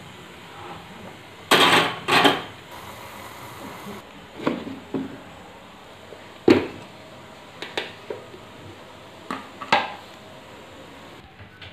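Kitchen things being handled on a counter: a string of separate knocks and clatters, the loudest pair about two seconds in. Some of them come from a plastic storage box having its plastic lid taken off and set down.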